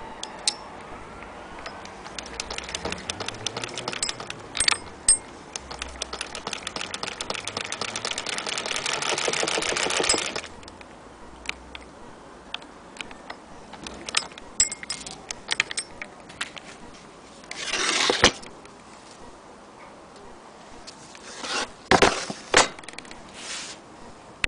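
Antique Singer Model 12K fiddle-base sewing machine being hand-cranked. It runs as a rapid, even clicking that speeds up and grows louder, then stops abruptly about ten seconds in. After that come scattered single clicks and a few short, louder noises.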